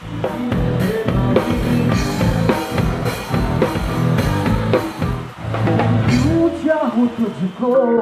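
Rock band music: a drum kit keeps a steady beat under bass and electric guitar. The drums and bass drop away for about the last second.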